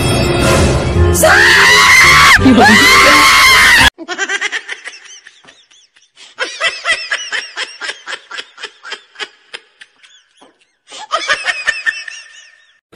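A loud, high-pitched human scream over music that cuts off suddenly about four seconds in, followed by bursts of rapid, staccato laughter.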